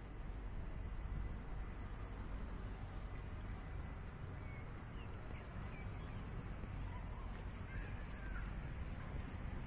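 Outdoor park ambience: a steady low rumble, with small birds chirping briefly and high-pitched again and again.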